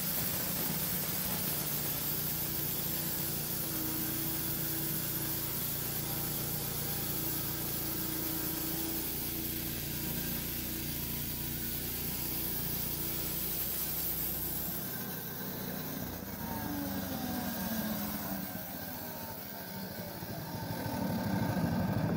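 Gas-engine bandsaw mill running at raised throttle while its blade rips a picket board off a pine cant, a steady engine drone. About fifteen seconds in the engine note changes and slides in pitch, and the level dips, then rises again near the end.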